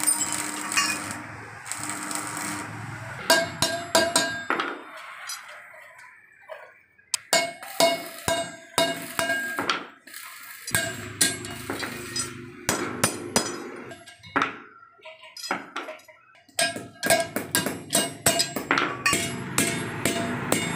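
Hammer blows on a steel bar held in a bending jig as it is bent into a scroll: sharp, ringing metal strikes in quick clusters with short pauses. The first few seconds are the crackle of electric arc welding.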